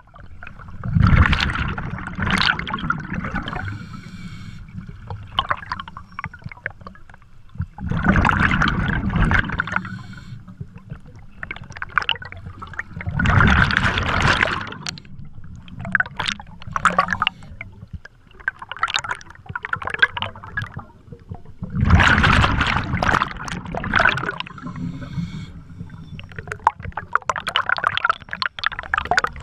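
Underwater, a scuba diver's exhaled bubbles rush out of the regulator in four loud bubbling bursts several seconds apart, with fainter bubble crackling between them.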